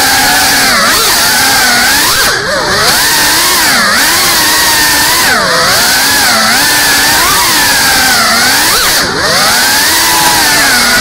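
GEPRC Cinelog 35 cinewhoop quadcopter's motors and ducted propellers whining in flight, the pitch rising and falling constantly with the throttle. The whine drops off briefly twice, about two seconds in and near the end, as the throttle is cut.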